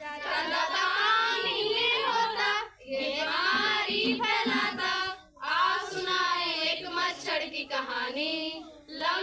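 A group of girls singing a Hindi song together, in three phrases with short breaks between them.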